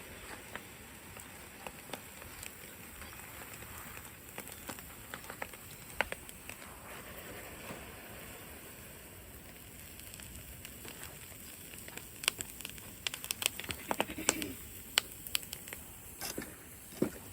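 Molten aluminum crackling and popping as it hits water-filled Orbeez gel beads: the water in the beads flashes to steam. Scattered sharp pops come thicker about twelve seconds in, over a steady hiss.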